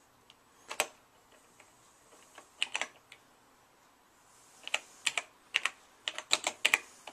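Key presses on the keyboard of a Tandy Model 100-series portable computer being typed on: a single keystroke, a short group of clicks, then a quicker run of keystrokes over the last few seconds.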